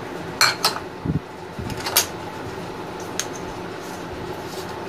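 Small ceramic bowls clinking against each other and the rim of a large ceramic mixing bowl as ingredients are tipped in. There are about five short, light clinks over a steady background hum.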